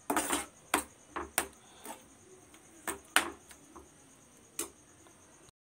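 Metal spoon scraping and knocking against a stainless steel pan while stirring thick, reducing carrot halwa: about eight short, irregular strokes with quiet gaps between them.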